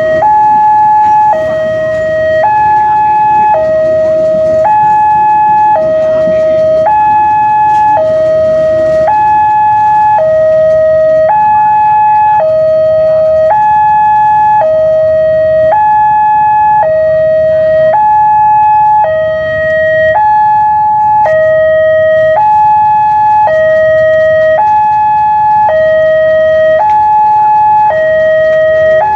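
Railway level-crossing warning alarm sounding a loud two-tone hi-lo signal, switching pitch about once a second. Over the first several seconds a passing passenger train's carriages rumble beneath it.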